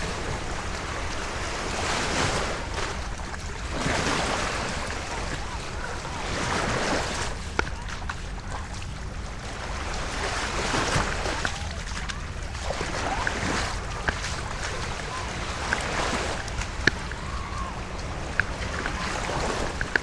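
Small lake waves lapping and washing onto a sandy shore, swelling every two to three seconds, with a few sharp ticks.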